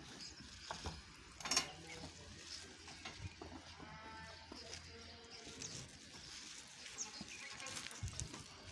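A cow moos faintly in the pen about three to four seconds in, over quiet barn background. A brief sharp noise comes about a second and a half in.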